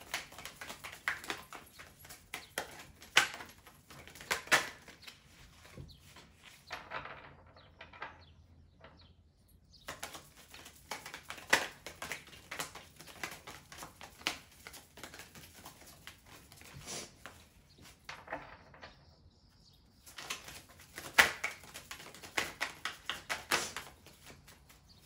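A tarot deck shuffled in the hands, the cards flicking and slapping together in rapid runs of clicks, in three bouts with short pauses between.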